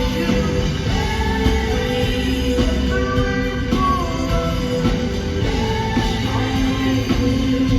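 Rock music: a band playing, with a lead melody line over a steady beat.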